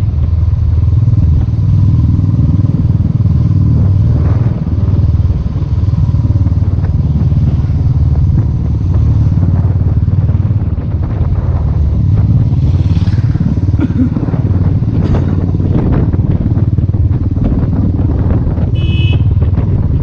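Motorcycle engine running steadily at cruising speed, heard from the rider's seat with heavy wind rumble on the microphone. A short horn toot sounds near the end.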